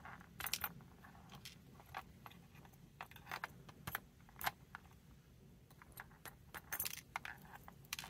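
Light, irregular metallic clicks and taps as the brass plug and follower of a gutted American 5560 padlock are handled and jiggled, trying to work the pins out of their chambers.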